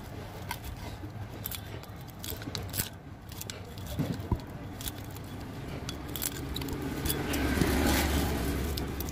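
Diagonal cutters snipping and prying old copper windings out of an electric motor's stator: a run of sharp clicks and scrapes of wire against the metal core. A low rumble swells near the end.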